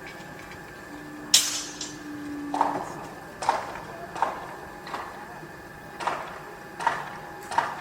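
Construction-site noise: a loud metallic clank a little over a second in, with a brief low hum behind it, then a steady series of ringing knocks about every three quarters of a second, like hammer blows on metal.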